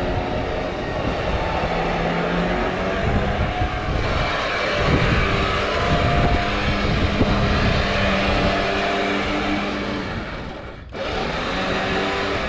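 A vehicle engine running steadily under loud rushing noise, its note shifting a few times; the sound breaks off abruptly near the end and resumes.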